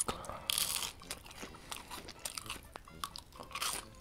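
A bite into a homemade fried chicken nugget about half a second in, then chewing with many small crisp crackles, picked up close to the mouth.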